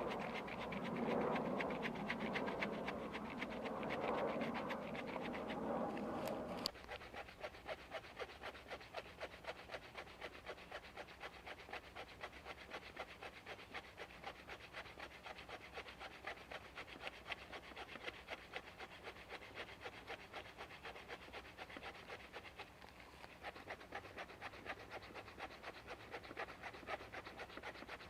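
Large 30-inch hand saw cutting through a thick log in fast, even rasping strokes. The sound is louder and fuller for the first several seconds, then changes abruptly to a thinner, quicker stroke pattern.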